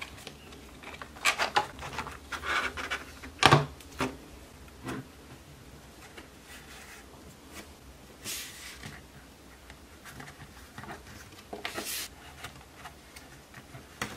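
Clear plastic packaging being handled and pulled apart by hand: scattered sharp plastic clicks and taps with short rustles. The loudest clicks come in the first few seconds.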